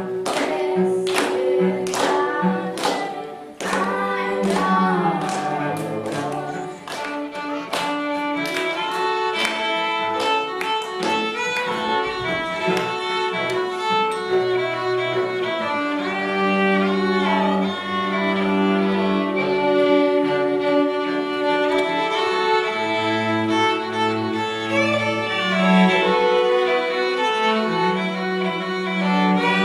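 Small string ensemble of violin and cello playing a fiddle-style arrangement. For the first ten seconds or so sharp percussive strokes keep a beat about twice a second under the notes, then the playing turns to long sustained bowed melody lines over a low held bass.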